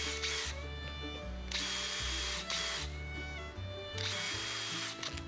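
Cordless drill with a countersink bit cutting into an aluminium bar in three short bursts of about a second each, at the start, about a second and a half in, and about four seconds in. Background music plays throughout.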